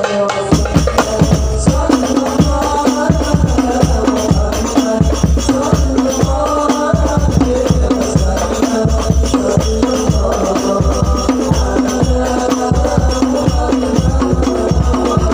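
Instrumental passage of Islamic devotional (sholawat) group music: a fast, steady hand-drum rhythm with a deep bass drum and jingling tambourine or shaker, under a sustained melody line.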